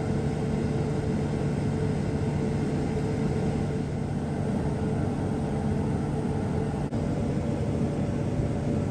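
Combine harvester running steadily during wheat harvest: a continuous low machine drone with a steady hum.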